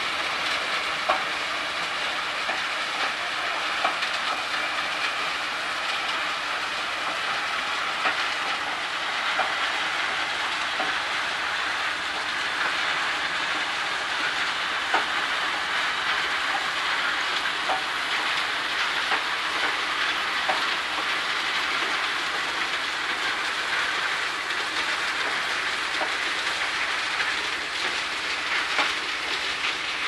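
Sand washing plant machinery running: rotary trommel screen, bucket-wheel sand washer and belt conveyor, heard as a steady clattering, rushing noise with occasional sharp clicks.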